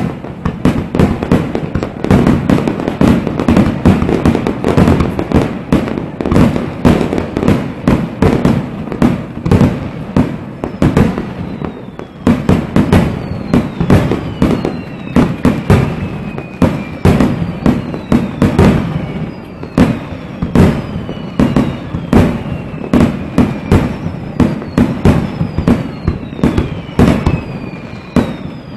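Fireworks display: aerial shells bursting in a dense, unbroken barrage, several bangs a second over a continuous low rumble. From about halfway through, a high falling whistle repeats every second or two among the bangs.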